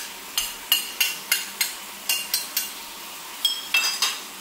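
Spatula striking and scraping a metal wok as brinjal and tomato pieces are stir-fried: a run of sharp clinks with a ringing tone, about two to three a second, bunching together near the end.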